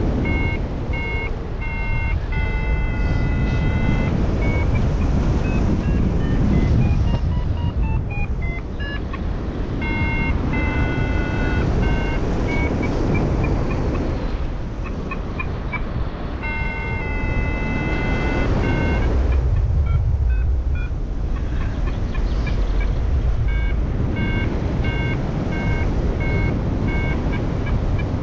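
XC Tracer Maxx variometer beeping in fast repeated pulses that step up and down in pitch, the climb tone that signals the paraglider rising in lift, with short pauses. Steady wind rushing over the microphone underneath.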